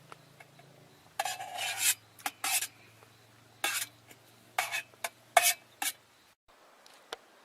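Utensils scraping and clinking against dishes while food is stirred and eaten, in about eight short strokes, over a faint steady low hum that stops near the end.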